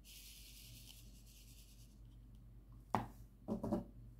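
Diamond painting pen and resin drills handled over a plastic tray and canvas. A faint scratchy hiss lasts about two seconds, then a sharp tap comes about three seconds in, followed by a quick run of small clicks as drills are set onto the canvas.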